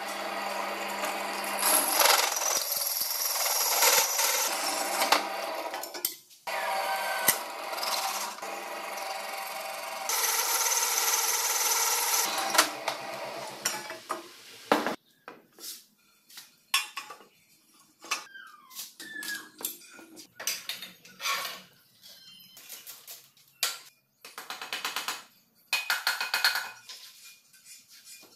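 Bench drill press running a small hole saw through steel plate: a steady motor hum under loud cutting noise, broken off briefly twice. About halfway through the cutting stops and a run of separate metal clinks and knocks follows.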